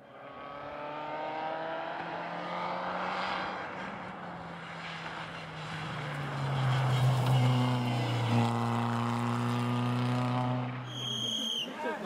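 Škoda rally car's engine running hard as it approaches, growing louder and rising in pitch, then passing close about six seconds in, where the pitch drops and stays steady. The sound cuts off about a second before the end.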